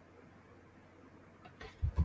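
Quiet room tone, then from about one and a half seconds in a few sharp clicks of computer keyboard keys being pressed.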